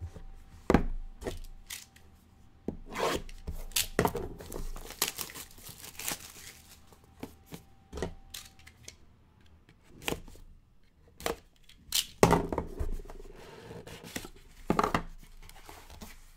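Plastic shrink wrap being torn and crinkled off sealed trading-card boxes, with the cardboard boxes knocked and handled on a table: an irregular run of sharp rips, crackles and taps.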